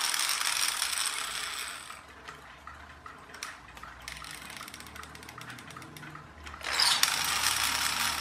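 Plastic gear train of a VEX Robotics Gear Racer rubber-band car clicking and ratcheting as its wind-up arm is pulled back, loading the rubber band. Rapid, dense clicking for the first two seconds turns to fainter, sparser ticks, then comes back loud and rapid near the end.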